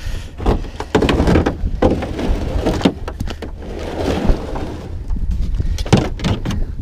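Plastic kayak hull scraping and grinding over crusty snow and ice as the boat is shoved along and climbed into, with irregular knocks and crunches.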